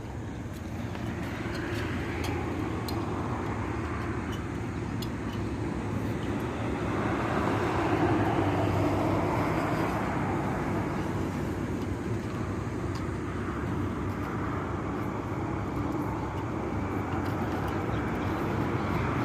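Iveco truck engine running with a steady low hum, under a broad rush of escaping air from the burst air dryer filter that swells and eases in waves.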